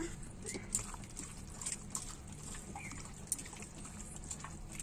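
Wet squelching of a hand kneading yogurt-marinated chicken in a steel bowl, with a few sharp clicks.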